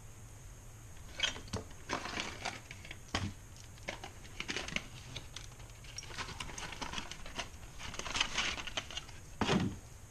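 Hands handling plastic and cardboard packaging and accessories: irregular rustling and crinkling with small clicks, and a heavier knock near the end.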